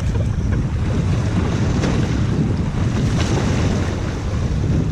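Wind buffeting the microphone in a steady low rumble, over sea waves washing against the breakwater rocks.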